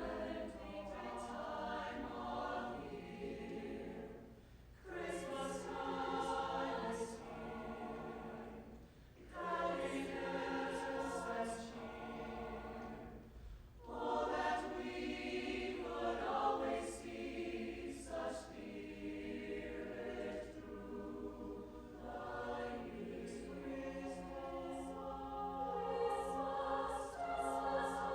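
A high school choir singing, its phrases broken by short pauses about every four to five seconds in the first half.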